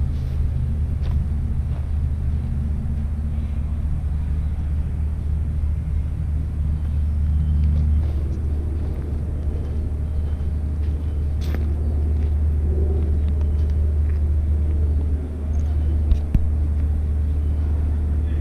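A steady low rumble, with a low steady hum over it for the first half that then fades, and a couple of faint knocks later on.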